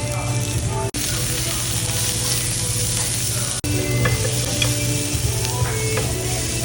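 Food sizzling steadily as it fries in a hot pan, over background music; the sound cuts out for an instant twice.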